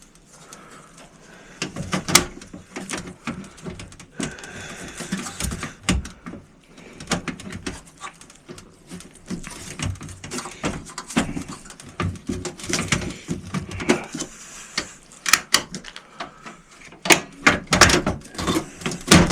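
Irregular clicks, knocks and scrapes of a Dell desktop computer case being reassembled by hand, parts pushed back into place and latched, with a cluster of sharper clicks near the end.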